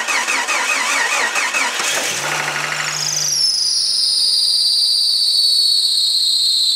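1992 Jeep YJ's 4.0L straight-six cranked on the starter for about two seconds, then catching and running. Once it runs, a loud high-pitched squeal rises over the engine, drops in pitch and then holds steady. This is typical of a worn or slipping serpentine belt, the "really pathetic" sound it makes when fired up.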